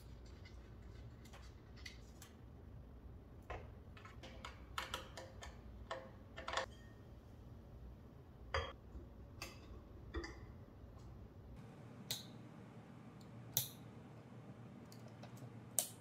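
Faint, scattered clicks and light taps of ceiling fan parts being handled and fitted by hand, including a glass light globe being set into the fan's light housing; a few sharper clicks near the end.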